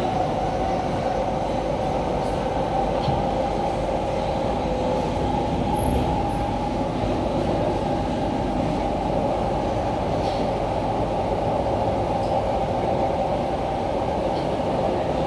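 SMRT C151C metro train (Kawasaki–CRRC Sifang) running between stations, heard from inside the passenger car: a steady rumble of the wheels on the rails with a constant hum, and a few faint ticks.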